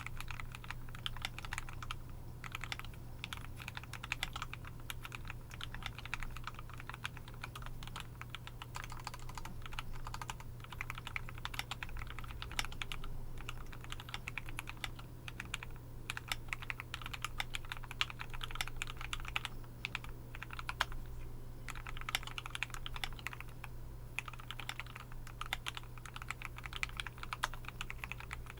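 Typing on a KBDFANS D65 65% mechanical keyboard with a brass plate and Tealios V2 linear switches. A rapid, continuous run of keystrokes with a few brief pauses.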